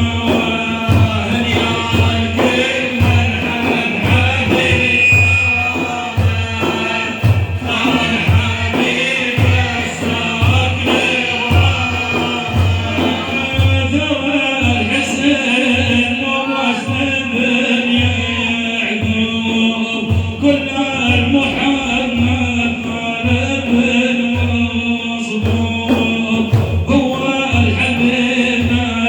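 Religious praise song (madih) chanted by a male singer with group voices, over a steady low drum beat of about one stroke a second.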